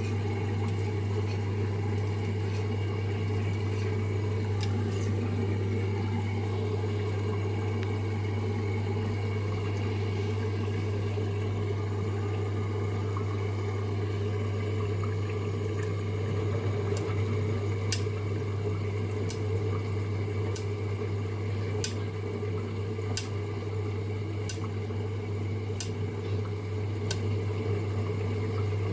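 LG F2J5WN3W front-loading washing machine running during a suds lock, with a steady low hum over churning, gurgling water. About two-thirds of the way in, sharp clicks start and repeat roughly every 1.3 seconds.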